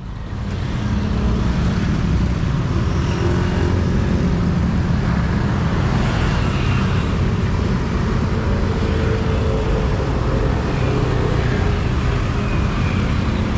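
Busy road traffic: motor scooters, motorbikes and cars passing with a steady mix of small engines and tyre noise. It fades in over the first second.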